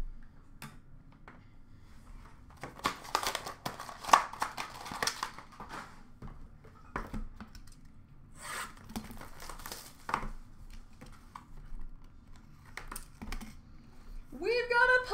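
Plastic trading card pack wrappers crinkling and tearing as packs are ripped open and handled, in irregular bursts of rustling with a few sharp clicks.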